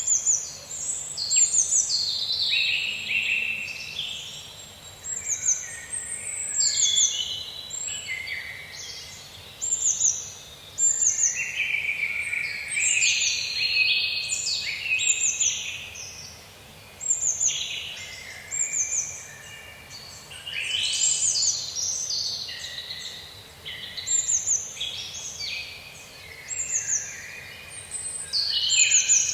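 Several songbirds singing together in a forest: many short, high, falling chirps and phrases overlapping without pause, over a faint steady background hiss.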